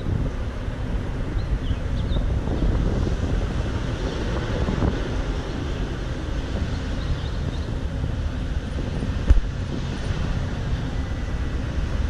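City street ambience: a steady low rumble of traffic with wind buffeting the microphone, and one short thump about nine seconds in.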